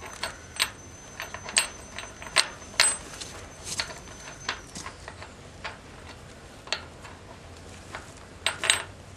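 Irregular sharp metallic clicks and taps, about one or two a second with a quick cluster near the end, as a nut is run by hand onto a threaded holding-down bolt against a tapered girder washer under a channel-iron engine underbase.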